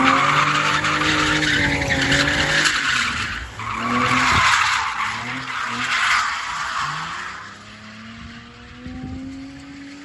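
BMW E46 330 coupe drifting: its straight-six engine revs up and down while the rear tyres squeal and skid through the slide. About three-quarters of the way through, the tyre noise stops and the engine fades as the car drives away.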